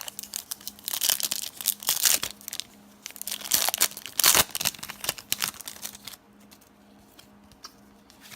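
A trading card pack wrapper being torn open and crinkled, in two loud bursts of tearing and crackling, then lighter rustling as the cards come out.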